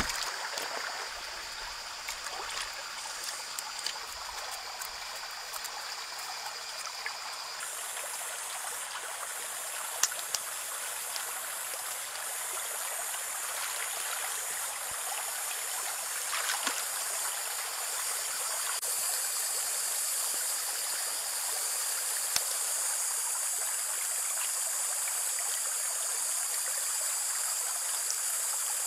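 Water splashing and running steadily as hands wash fish roe in a metal wok, with a few sharp knocks.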